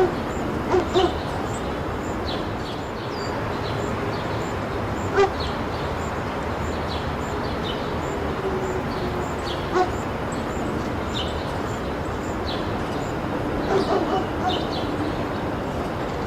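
A dog barking in short, separate barks: two about a second in, one around five seconds, one around ten seconds and a few more near the end, over a steady hiss.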